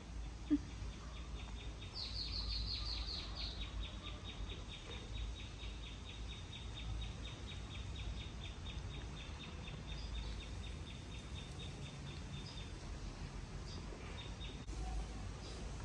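A calling animal's high, rapidly pulsing trill, very even, starting about a second in and stopping near thirteen seconds, over a low background rumble.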